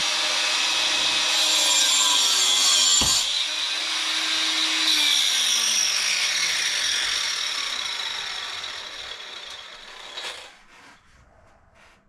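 Angle grinder with a diamond disc cutting a groove into a wall. About three seconds in there is a sharp pop as the disc nicks a buried electrical wire and trips the GFCI; the grinder loses power and spins down, its pitch falling over several seconds until it goes quiet.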